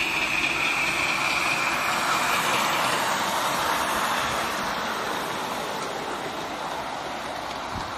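A passenger-hauling miniature steam locomotive and its riding cars running past on raised track: a steady rushing, rumbling train noise, loudest a second or two in and slowly fading as the train moves away. A steady high-pitched tone fades out about two and a half seconds in.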